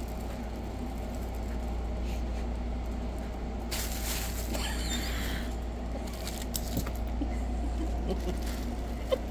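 Steady low hum, with a rustle of a fabric cat tunnel being handled by cats about four seconds in, lasting over a second, then a few light ticks.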